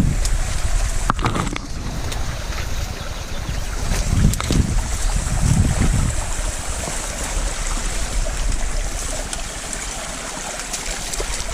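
Steady rushing of a waterfall, with gusts of wind buffeting the microphone and a few sharp knocks.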